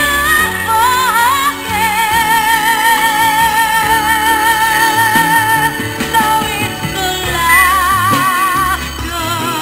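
Background song: a singer holds long notes with a wide vibrato over a steady instrumental accompaniment.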